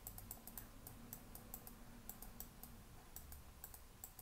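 Faint, irregular computer keyboard clicking, several light clicks a second.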